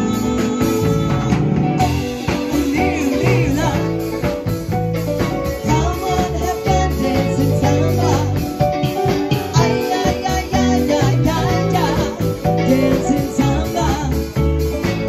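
Live rock band playing, with a woman singing lead over electric guitar, bass guitar and a drum kit.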